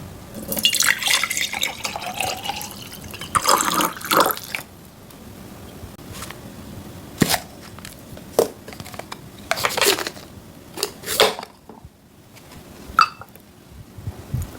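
Water sounds: pouring and splashing in the first few seconds, then a series of separate drips and splashes.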